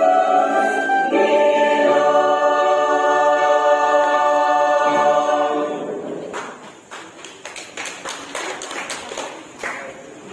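Mixed chancel choir singing held chords that end about five and a half seconds in, followed by scattered applause.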